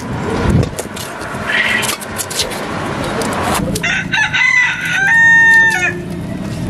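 A rooster crowing: one long crow about two seconds long, starting a little past halfway through.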